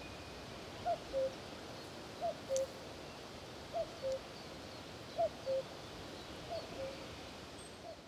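Common cuckoo calling its two-note call, a higher note followed by a lower one, repeated about every one and a half seconds, about six times. The last two calls are fainter.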